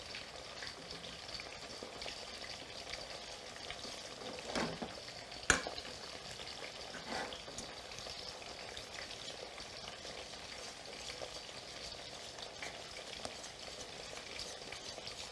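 Zucchini slices sizzling steadily as they fry in oil in a steel pan, with a wire whisk stirring béchamel in a stainless steel pot. A few clinks of the whisk against the pot come around the middle, the sharpest about five and a half seconds in.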